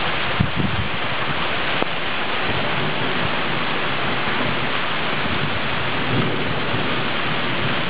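Heavy thunderstorm downpour, a dense, steady hiss of rain.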